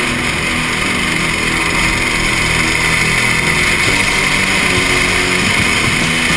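Go-kart engine running continuously under race load, heard from the onboard camera on the kart.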